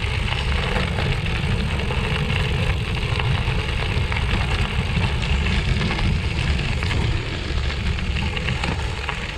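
Bicycle riding on gravel: wind buffeting the microphone in a steady low rumble, with tyres crunching and crackling over loose gravel.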